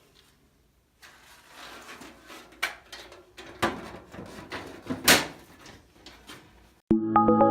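Breaker panel's metal front cover being handled and fitted back on: scraping and rattling with three sharper knocks. Music comes in near the end.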